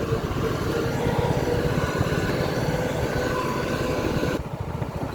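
Engine of a rice harvesting machine running steadily with a rapid low pulsing beat; its higher sounds cut away abruptly near the end.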